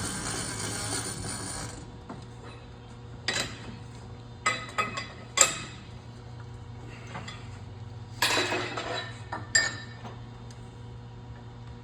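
Steel bar stock scraping as it is pushed through a lathe spindle, followed by a string of sharp metal clanks and knocks, over a steady low hum.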